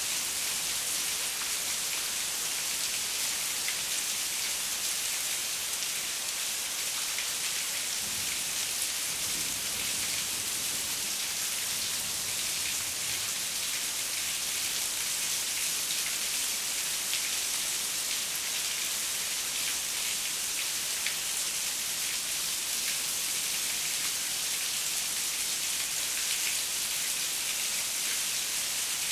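Heavy rain falling steadily: a dense, even hiss with a fine patter of individual drops.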